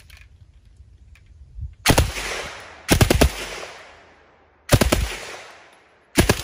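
MAT-49 submachine gun, rechambered to 7.62×25mm Tokarev, firing four short bursts of automatic fire, each a quick string of a few shots with an echo trailing off after it.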